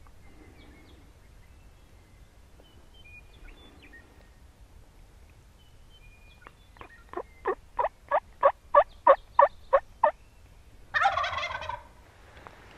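A run of about a dozen turkey yelps on a slate call, about three a second and growing louder, answered about a second later by a wild Merriam's turkey gobbler with one loud gobble.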